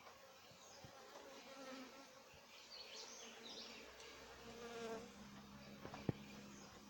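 Honeybees buzzing faintly as they fly around the hive entrances, single bees passing close with a hum that rises and falls in pitch. A sharp click about six seconds in.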